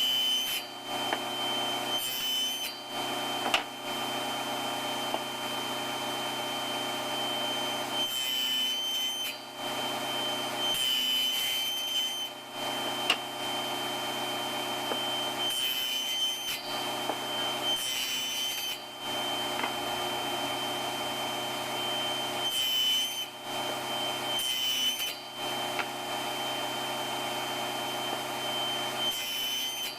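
Table saw running steadily, its blade cutting into wood in about eight short passes, each a second or so long, as tenons are cut.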